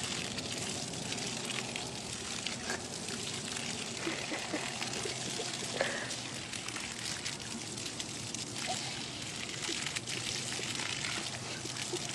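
Water spraying steadily from a garden hose onto grass, an even hiss.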